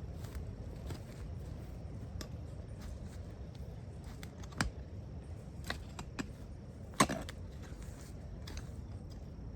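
A few scattered sharp knocks and clicks, the loudest about seven seconds in, over a steady low rumble, from hand work in the soil while planting.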